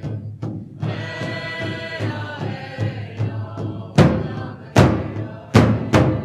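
Recorded Native American chant: group singing over a steady drum beat. About four seconds in the singing gives way to a run of loud, hard drum strokes.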